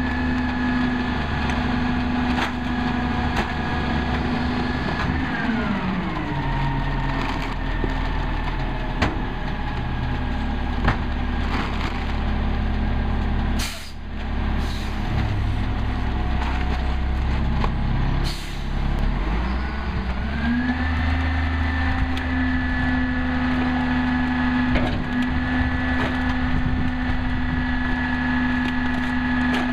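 Diesel engine of a Peterbilt 320 rear-loader garbage truck running at a raised idle. It drops to a low idle about five seconds in and ramps back up to the raised idle about twenty seconds in. Scattered knocks and clatter of recyclables and carts being dumped into the hopper sound over it.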